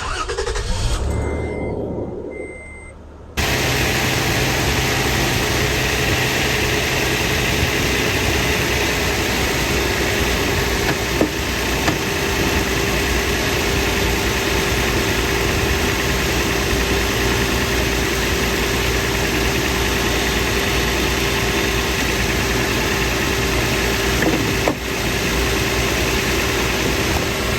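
2008 Toyota Tacoma engine starting and idling, with two short beeps early on. About three seconds in, a steady, loud rush comes in and holds: the air conditioning switched on full blast over the idling engine.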